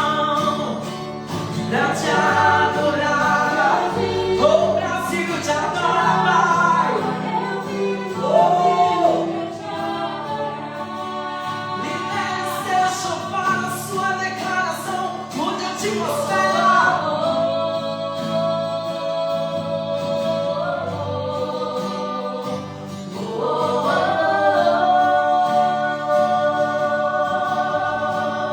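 Worship singing: several voices with a sustained instrumental backing, a moving melody that settles into long held notes in the second half.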